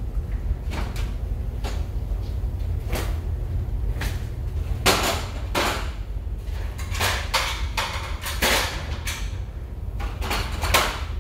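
Steady low rumble of a paint booth's ventilation, with repeated short, sharp bursts of noise that come louder and closer together from about halfway through.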